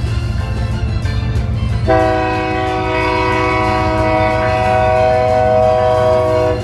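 Freight train air horn sounding one long blast, a chord of several steady tones that starts about two seconds in, over a low rumble.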